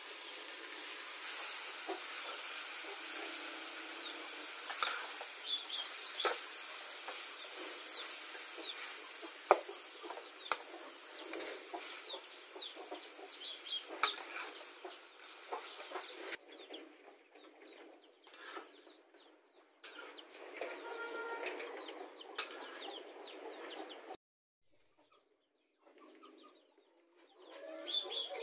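Minced meat sizzling in a steel wok, with a metal spatula now and then clicking and scraping against the pan, and chickens clucking in the background. The sizzling breaks off a little past halfway, leaving quieter clatter and clucking.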